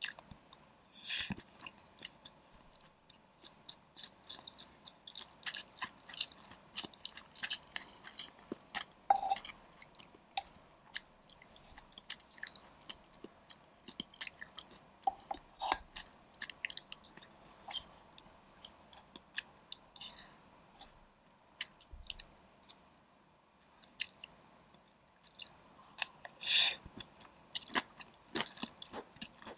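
Close-miked chewing of spicy dry pot: many small wet clicks and mouth sounds, with a louder sharp sound about a second in and another near the end.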